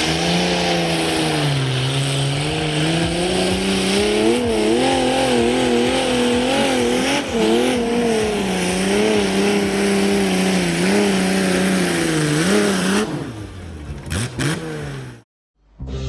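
Garden pulling tractor's engine running hard at high revs under load, its pitch wavering up and down over a loud exhaust hiss. About thirteen seconds in, the engine drops off, and the sound then cuts out abruptly near the end.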